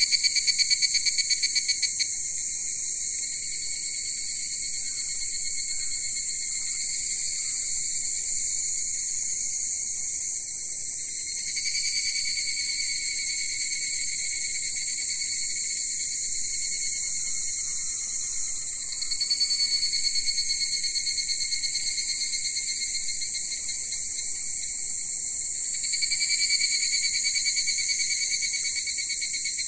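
Insects calling in a steady high-pitched trilling chorus, with the calls swelling slightly about every seven seconds.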